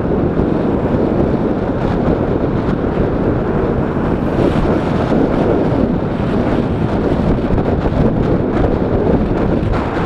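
Strong headwind blasting across a bicycle-mounted action camera's microphone while riding: a loud, steady, low rumbling wind noise that covers everything else.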